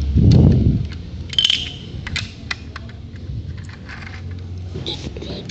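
Small hard plastic LEGO pieces clicking and clattering on a tile floor as they are handled, with a ringing clink about a second and a half in. A short low rumble comes in the first second.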